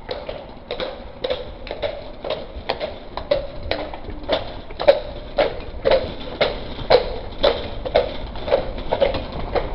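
Horse's hooves clip-clopping at a walk, a steady rhythm of hollow knocks about two a second.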